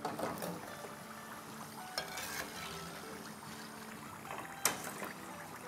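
Metal slotted spoon lifting deep-fried spring rolls out of hot oil onto a plate: a few sharp metal clinks against the pot and plate, the loudest about three-quarters of the way through, over faint sizzling of the oil.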